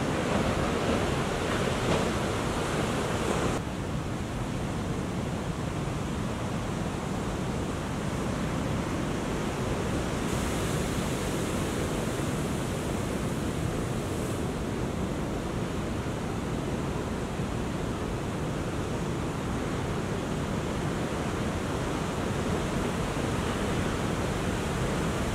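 Big ocean waves breaking, a steady rush of surf, with wind noise on the microphone. The noise shifts abruptly about three and a half seconds in and again about ten seconds in.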